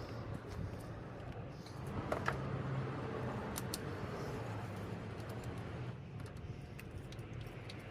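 Faint scattered clicks and handling noises over a low steady hum.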